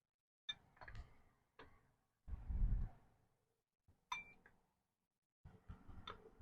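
Workshop handling sounds: a few scattered sharp clicks and clinks, with one dull, low thump about two and a half seconds in.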